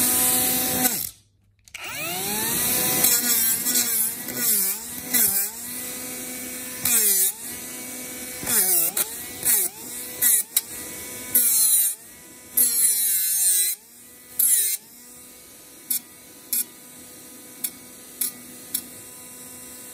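A 12 V cordless mini angle grinder with a flap disc, its motor whine dipping in pitch again and again as the disc is pressed against the edge of a wooden board, with rasping sanding noise at each contact. It spins up after a short gap about two seconds in, and near the end it runs freely with a few light clicks.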